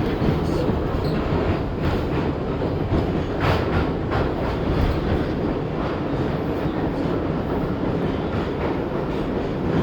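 R62A subway car running between stations, heard from inside: a steady rumble of wheels on the rails with a few sharp clacks over rail joints.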